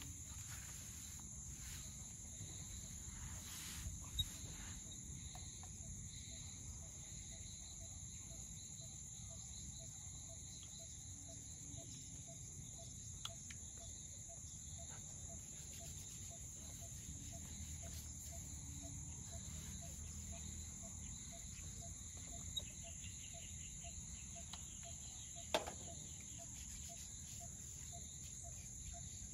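Steady, high-pitched chorus of crickets and other insects over a low background rumble, with a faint regular chirp underneath. A few sharp clicks stand out, one about four seconds in and the loudest near the end.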